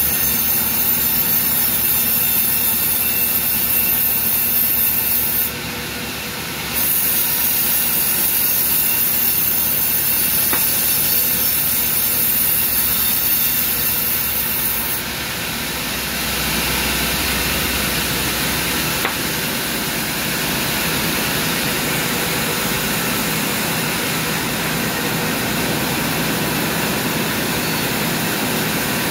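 Sawmill band saw running loud and steady while cutting a teak log on the carriage. The sound thins briefly about six seconds in, and about halfway through it changes, taking on a deeper rumble.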